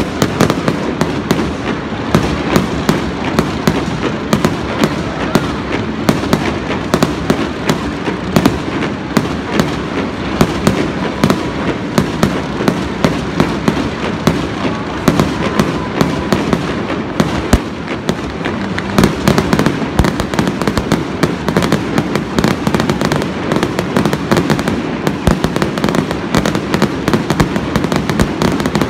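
Aerial fireworks bursting in a rapid, unbroken barrage of bangs and crackles.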